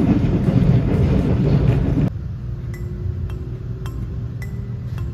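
Steady low rumble of the Nankai Rapi:t limited express running at speed, heard inside the carriage. About two seconds in it cuts off abruptly and is replaced by quieter background music of soft chiming notes, about two a second and changing in pitch.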